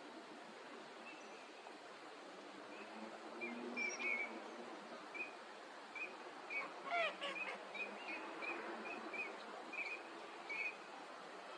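Eurasian teal giving short, high whistled calls, repeated many times at irregular intervals over a steady background hiss. About seven seconds in there is one louder call that slides down in pitch.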